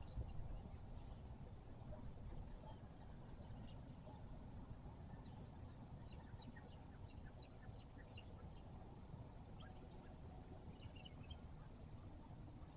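Faint rural outdoor ambience: a steady high-pitched insect drone over a low rumble, with a quick run of small bird chirps about halfway through and a few more near the end.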